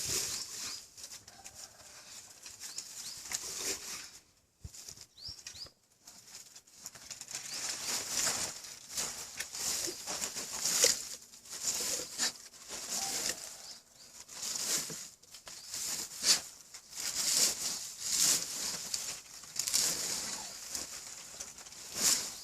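A dog scratching and scraping at the ground to bury a duck carcass: irregular bursts of rustling and scraping, with a short lull about four to six seconds in.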